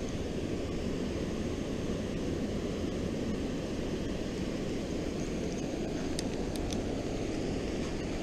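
Steady rushing of fast-flowing river water spilling below a dam, an even roar with no change, with a few light clicks about six seconds in.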